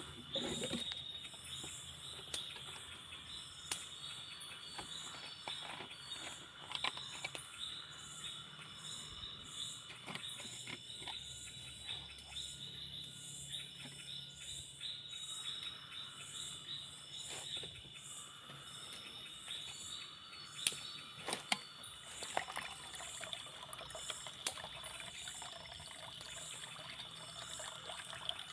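Forest insects: a steady high buzzing drone under a higher pulsing chirp that repeats every second or two, with scattered light clicks and taps.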